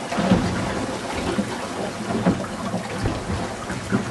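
Wind buffeting the microphone in uneven gusts, a rumbling noise, with a faint low steady hum underneath.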